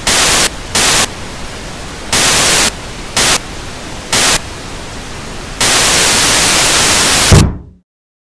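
Television static hiss that jumps louder in short surges several times, then holds loud for over a second. Near the end comes a low thump as a fist bangs the old set, and the static cuts off suddenly.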